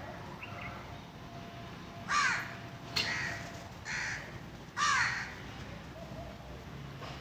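A bird calling four times, about a second apart, each call a loud, harsh, pitched cry.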